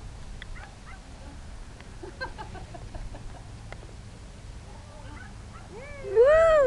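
A dog's drawn-out howling call, about a second long, rising and then falling in pitch, near the end. Before it there are only faint scattered yips or chirps.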